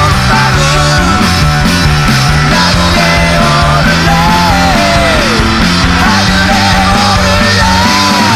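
Loud punk rock band playing: distorted electric guitar, bass and drums, with lead notes that slide down in pitch a few times.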